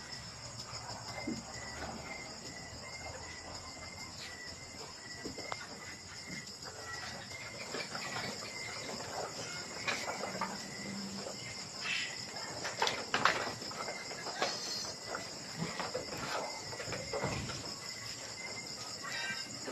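Insects chirping steadily in a continuous high pulsing trill, with a fainter chirp repeating at an even pace underneath. A few short knocks and rustles come a little past the middle.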